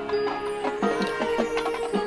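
High school marching band playing: a held note with short, evenly spaced struck percussion notes over it.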